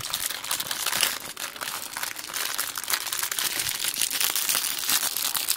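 Thin plastic crumpet bag being crinkled and pulled open by hand: a continuous run of crackling rustles.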